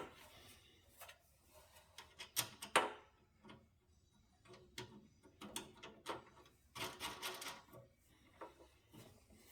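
Scattered faint clicks and taps of a wrench and small metal parts as a wire is fastened to a mower starter solenoid terminal, busiest about two and a half seconds in and again around seven seconds.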